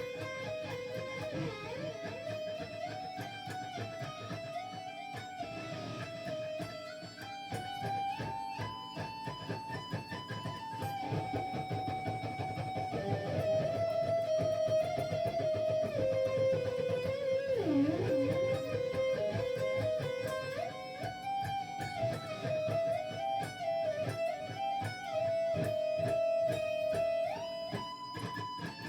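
Guitar playing single-note melodic runs in E harmonic minor, stepping up and down the scale in quick phrases, with a brief swoop down in pitch and back about two-thirds through.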